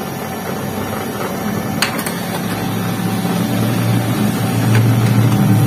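HP LaserJet P1102 laser printer printing a page: a steady motor whir with a few sharp clicks as the sheet is fed through.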